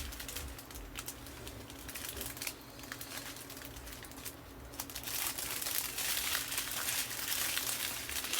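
Small plastic bags of diamond painting drills crinkling as they are handled and sorted, in irregular rustles that get busier in the second half.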